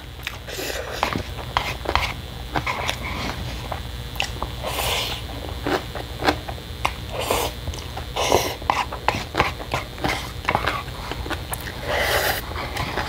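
Close-miked mouth sounds of a person eating instant noodles: steady wet chewing and lip smacks, broken by several short slurps, one near the end as the noodle cup is tipped to the mouth.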